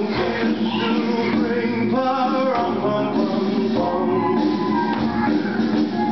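Recorded song playing, with a singing voice over the music.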